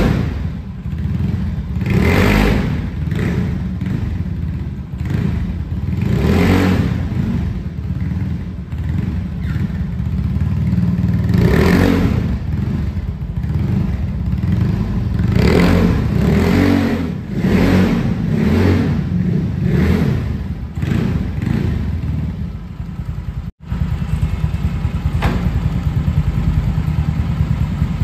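Carbureted Yamaha Mio scooter's single-cylinder four-stroke engine, breathing through a PDW racing exhaust with its dB-killer silencer fitted. It is revved in repeated blips about every two seconds, with a fairly mellow note, then settles to a steady idle for the last few seconds after a brief break in the sound.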